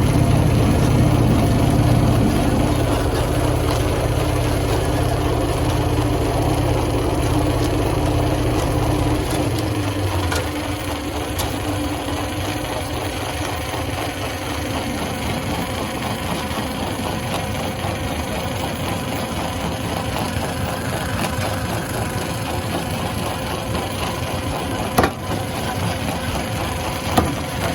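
Stone crushing machine running with a steady mechanical hum. Its deep rumble drops away about a third of the way through, leaving a lighter steady drone, and a few sharp knocks come near the end.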